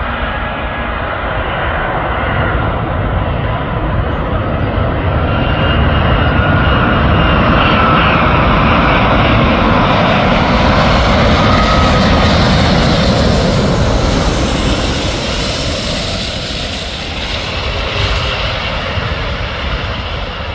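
Airbus A380 jet airliner landing: its four turbofan engines make a loud roar with a whine that slides in pitch. The sound builds to a peak about midway as the jet passes low, then eases off as it reaches the runway.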